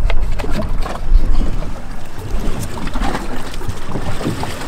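Wind rumbling over the microphone out on open water, with a few scattered light knocks and clicks from frozen stingray bait being handled on a cutting board.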